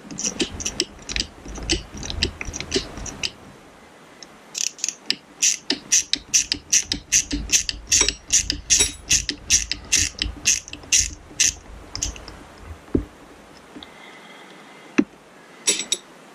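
Hand socket ratchet clicking in short runs, about three strokes a second, as it backs a bolt out of an outboard ignition coil's mounting bracket, with a pause around four seconds in. A few single sharp metallic knocks come near the end.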